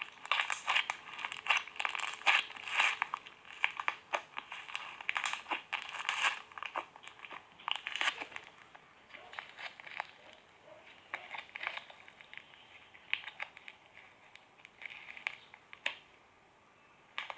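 Slime being squeezed and poked, giving dense crackling and popping clicks. The clicks are thickest for the first six seconds or so, then thin out into scattered pops.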